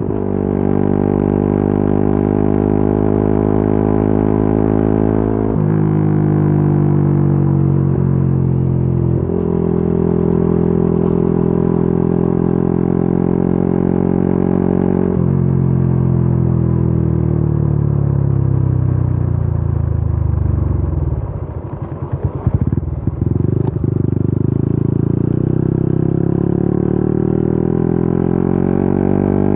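Yamaha Y15ZR's 150 cc single-cylinder four-stroke engine pulling hard and shifting up, the pitch rising in each gear and dropping sharply at the quickshifter upshifts about five, nine and fifteen seconds in. Around twenty seconds in the throttle closes, the pitch sinks and the exhaust crackles, then the engine revs up again.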